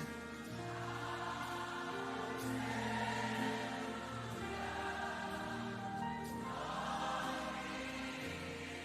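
Gospel worship music: many voices singing together over a held instrumental accompaniment, with a bass note that changes every couple of seconds.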